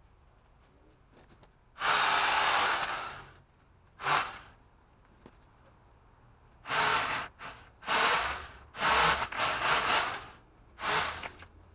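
Powered pole saw running in short, irregular trigger bursts as it cuts branches: a high whine that rises and falls, over a hissing cutting noise. It stops fully between bursts. The first burst is the longest, about a second and a half; the rest come quickly one after another in the second half.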